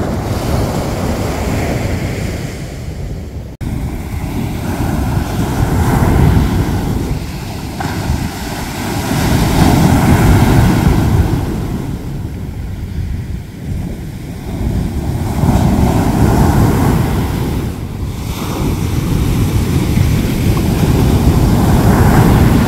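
Ocean surf breaking on a beach, swelling and fading in slow surges every five seconds or so, with wind buffeting the microphone.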